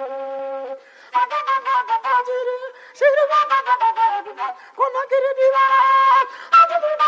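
Background music: a flute-like melody of quick, ornamented notes, with a brief pause about a second in.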